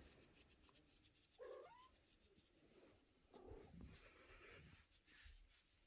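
Scottish kitten mewing faintly, twice, about two seconds apart; the first mew rises in pitch. Faint light clicks run under the mews.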